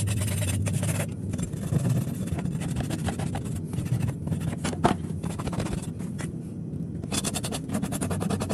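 A farrier's hoof rasp filing across a horse's hoof in quick, repeated scraping strokes, heaviest in the first second and again near the end, over a steady low hum.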